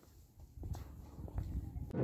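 Faint footsteps on a concrete driveway, about two steps a second, with a low rumble that grows toward the end.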